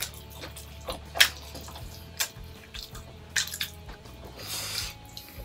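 People eating momos: wet chewing and mouth sounds with a few sharp clicks, the loudest a little over a second in.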